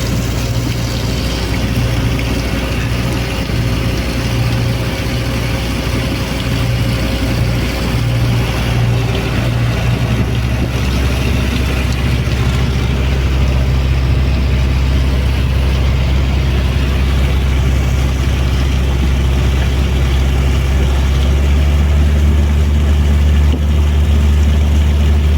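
Boat engine running steadily under way, with a low hum that turns deeper and louder about three quarters of the way through, over a steady rush of water and wind.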